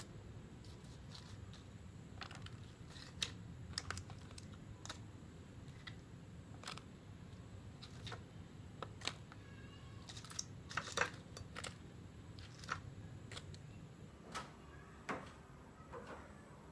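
Irregular light clicks and taps as fried spring rolls are picked off a glass plate and packed into a plastic food container, over a low steady background hum.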